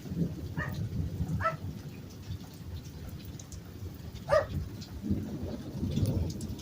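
Thunderstorm: steady rain with low rumbling thunder that swells again near the end. Three short animal calls cut through, the loudest about four seconds in.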